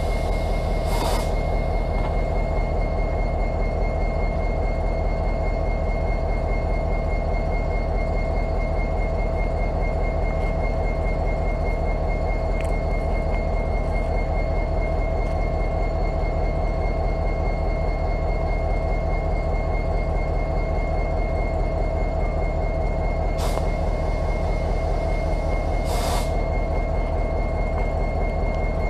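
EMD SD70ACe diesel locomotive idling at a standstill, its 16-cylinder two-stroke EMD 710 engine giving a steady low rumble under a constant high-pitched whine. A few short hisses come about a second in and twice near the end.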